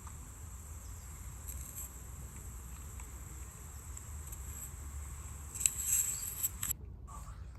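Quiet stretch of a played-back EVP field recording: steady low wind rumble and hiss with a thin high whine. A brief louder rustle comes about six seconds in, then the hiss cuts off suddenly.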